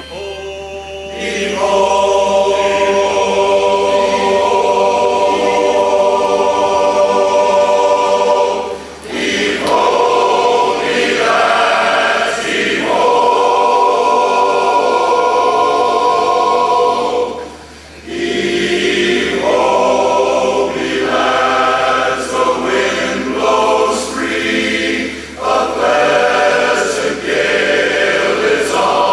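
Barbershop chorus singing a cappella in close harmony, with long held chords at first and then shorter phrases, with a brief break about two-thirds of the way in.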